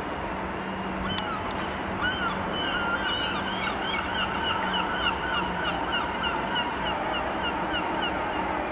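Wheels of a slow-moving diesel multiple unit squealing on curved track in a rapid series of short high squeaks, about four a second, starting about two seconds in, over a steady low engine hum.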